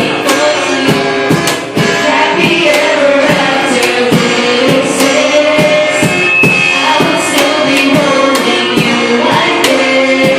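Live amateur group performance: singers on microphones over a strummed acoustic guitar and a steady hand-played cajon beat.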